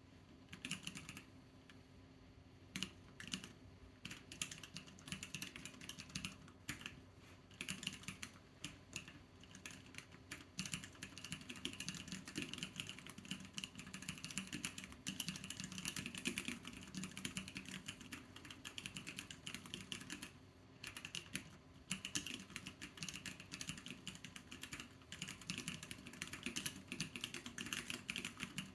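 Typing on a MiniAxe split keyboard with Durock White Lotus linear switches and XVX profile keycaps: a steady, irregular stream of keystroke clacks, with a short pause about two-thirds of the way through.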